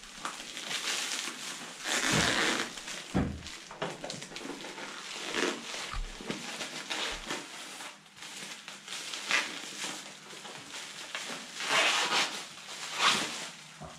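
Packaging being handled: a cardboard box shifted about and black plastic wrapping rustling and crinkling as it is pulled out, in irregular bursts with a few dull knocks.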